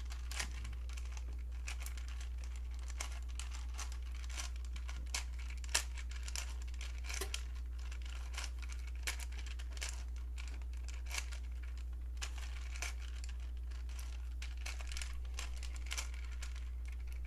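Rubik's-brand 4x4 speed cube being turned rapidly, its plastic layers clicking and clacking in quick, irregular turns; the new cube is tight and sounds crunchy. A steady low hum runs underneath.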